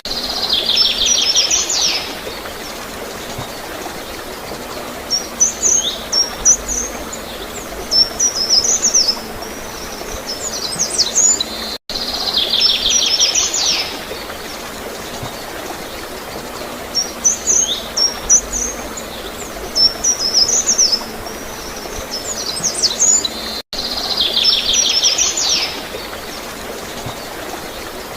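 Small birds calling: short high chirps and a fast trill, over a steady hiss of flowing water. The same stretch of about 12 seconds repeats, with a brief dropout at each join.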